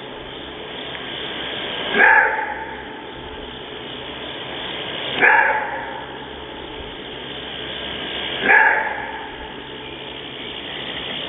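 Maned wolf giving its roar-bark: three short, loud, gruff barks, each about three seconds apart, as in a long-distance call.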